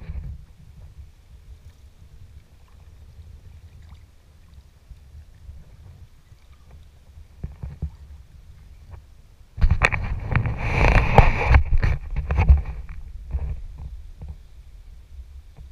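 Water splashing and sloshing against a Prijon Seayak sea kayak, starting suddenly about ten seconds in and lasting about three seconds before trailing off in a few splashes. A low rumble runs underneath.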